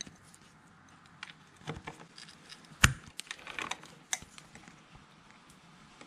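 Scattered light clicks and taps of hand tools working a motorcycle's rear brake caliper mounting bolt loose, irregular rather than a steady ratchet rhythm, with one sharper click about three seconds in.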